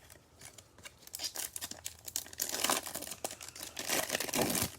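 A foil trading-card pack wrapper being torn open and crinkled, a dense run of crackling that grows louder through the middle and end.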